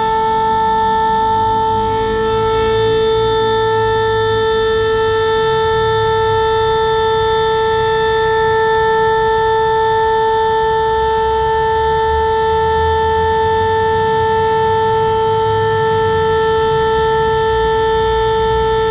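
Town siren sounding one long, loud tone held at a steady pitch, with a faint low rumble underneath.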